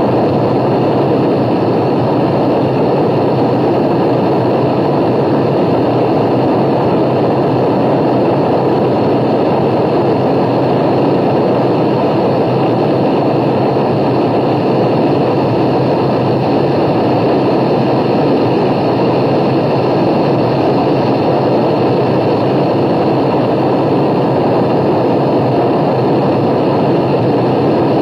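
A steady, loud, unchanging noise with a faint low hum. There is no speech or music in it.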